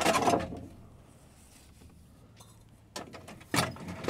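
Metal clanks and knocks inside a tank as a round is handled into the ammunition rack during reloading. One loud clank with a brief ring comes at the start, then a lull, then a light click and a couple of sharper knocks near the end.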